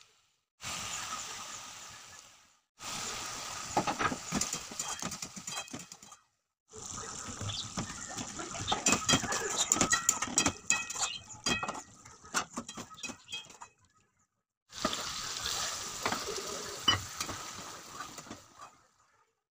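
Mutton curry sizzling in a metal kadai while a wooden spatula stirs it, with quick scraping clicks against the pan. The sound comes in several short stretches that cut off suddenly.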